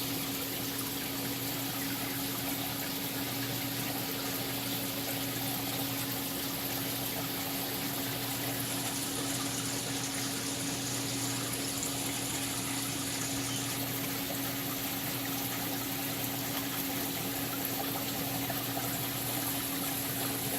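Aquarium water pumps and circulating water running steadily: an even rush of moving water with a constant low hum from the pump motors.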